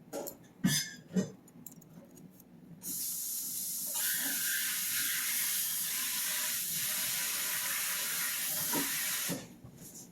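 A few light clicks of small parts being handled, then a steady spraying hiss that starts abruptly about three seconds in and cuts off sharply some six seconds later.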